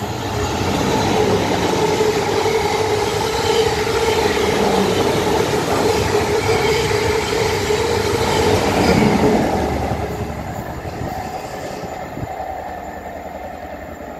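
South Western Railway passenger train running through a station at speed: a loud rush of wheels on rail over a steady tone. It builds in the first second, is loudest around nine seconds in, then fades as the train draws away.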